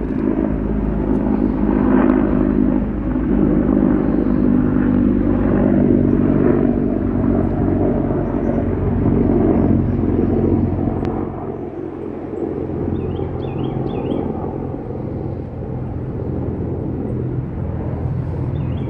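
Pigs snoring in a steady, rumbling rhythm of breaths that eases off about halfway through. A few faint bird chirps come in near the end.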